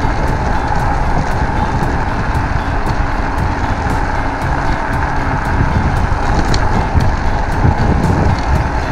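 Wind buffeting the microphone with road noise from an electric scooter riding at about 32 km/h, with a steady whine from its hub motors.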